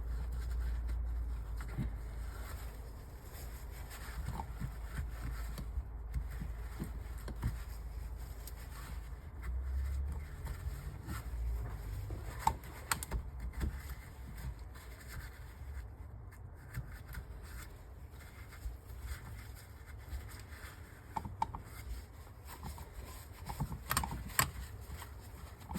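Cloth wiping and scraping over the metal carburettor body, with occasional light clicks of parts being handled and a steady low hum underneath.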